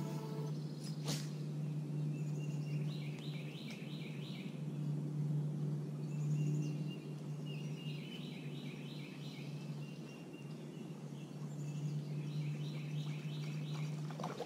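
Outdoor ambience: a songbird sings a short phrase of quick repeated notes three times, over a steady low hum that comes and goes.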